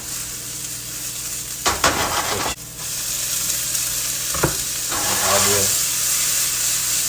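Diced green peppers and other vegetables sizzling in hot olive oil in a small non-stick pan, the sizzle growing louder about halfway through. A few short clatters of stirring in the pan around two seconds in and again a couple of seconds later.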